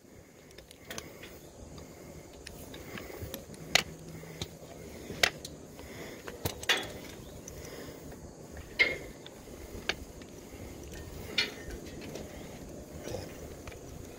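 Scattered sharp metallic clicks and clinks of climbing gear or tools being handled, about seven at irregular gaps of one to two seconds, over a faint steady background.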